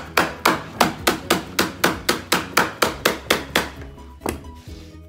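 Corded electric staple gun firing staples into stair carpet in a quick run, about four shots a second, then one more shot after a short pause.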